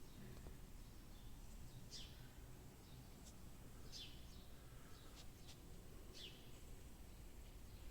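A small bird calling with a short, high, falling chirp about every two seconds, faint over a low steady hum of courtyard background.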